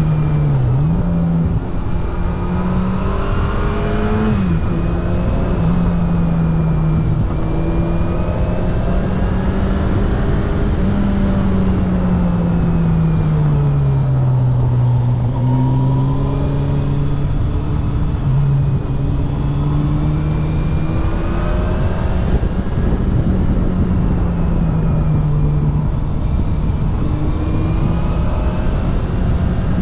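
Yamaha FJR 1300's inline-four engine running under way, its pitch rising and falling with the throttle: a few sudden drops in the first several seconds like gear changes, a slow fall around the middle, then a climb again. A steady rushing noise runs underneath.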